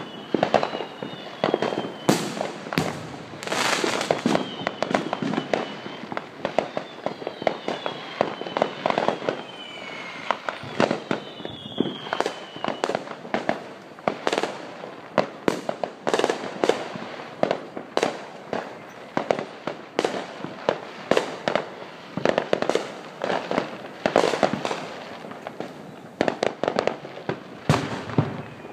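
Fireworks and firecrackers going off all around in a continuous run of sharp bangs and pops, some much louder than others, with several short falling whistles in the first half.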